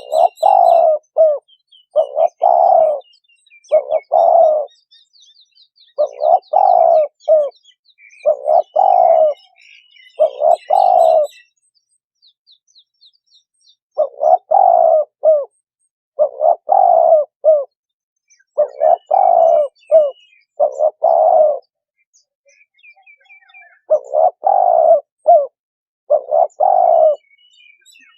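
Spotted dove cooing: repeated phrases of a few low coo notes, one phrase about every two seconds, broken by two short pauses. Faint high chirps of smaller birds sound in the background.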